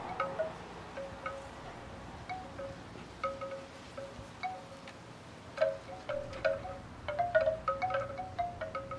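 Bamboo wind chime clonking in the breeze: short hollow knocks at a few different pitches, sparse at first and busier from about five and a half seconds in. Wind rumbles on the microphone underneath.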